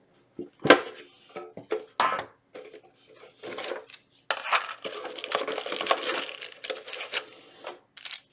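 Metal Yu-Gi-Oh Mega Tin being handled and opened: a few sharp clinks and knocks of the tin and its lid in the first two seconds, then a long stretch of packaging crinkling from about four seconds in.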